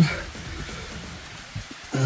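Background music over the steady rush of a waterfall.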